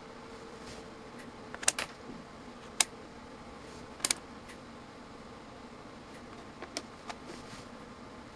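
Sharp plastic clicks from a handheld digital multimeter's rotary range switch turned through its detents and its buttons pressed, a few single clicks and quick pairs with gaps between them.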